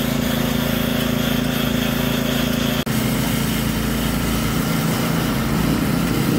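A small engine running steadily at an even speed, with a brief dropout nearly three seconds in.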